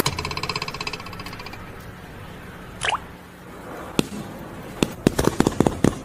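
A tone that fades out over the first second, then a run of light, irregular taps or clicks in the second half, thickest near the end.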